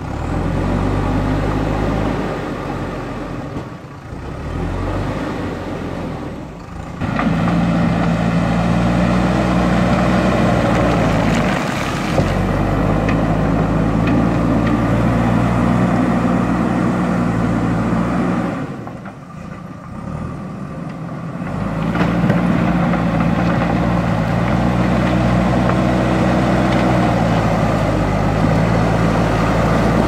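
JCB backhoe loader's diesel engine working under load as the front bucket pushes and levels rubble. It eases off twice, a few seconds in and again past the middle, then throttles back up to a steady hard-working note.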